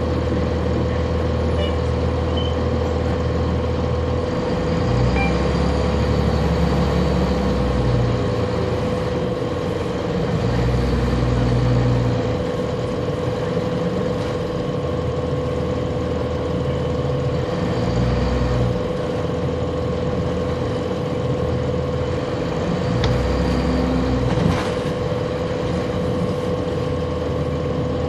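A 1999 Nova Bus RTS transit bus's Cummins ISC inline-six diesel with ZF Ecomat automatic, heard from on board. The engine pulls harder and eases off several times in short pulls under a steady whine, and there is one sharp knock about three-quarters of the way through.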